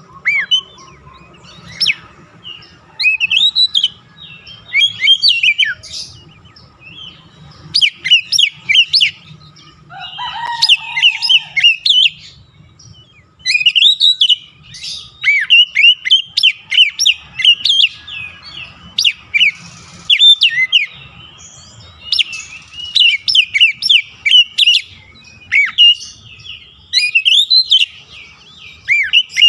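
Oriental magpie-robin (kacer) singing: rapid phrases of sharp, gliding whistled notes in bursts, with short pauses between them.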